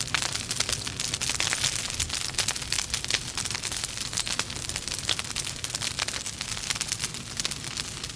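Wood fire crackling in a fireplace: burning logs giving many quick, irregular pops and snaps over a steady hiss.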